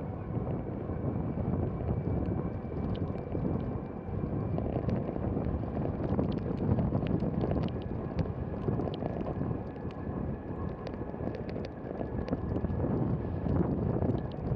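Wind buffeting the microphone over steady road rumble from a velomobile rolling on asphalt at about 20 mph, with a faint thin whine and scattered light ticks.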